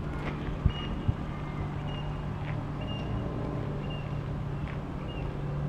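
Outdoor background noise: a steady low hum under an even rush of noise, with two sharp knocks about a second in and short high chirps repeating every second or so.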